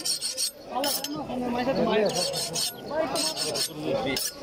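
A butcher's cleaver being honed on a sharpening steel: short rasping strokes of metal on metal, coming in several separate runs.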